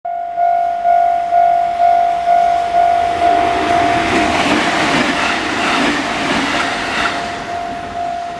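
Japanese railway level-crossing alarm ringing about twice a second as a train passes. The train's rumble and wheel clatter swell from about three seconds in and fade near the end.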